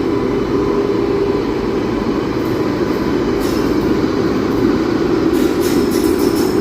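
Indian Railways express train hauled by a WAG-9 electric locomotive running past with a steady rumble. Wheels click over rail joints, once about three and a half seconds in and in a quicker run of clicks near the end.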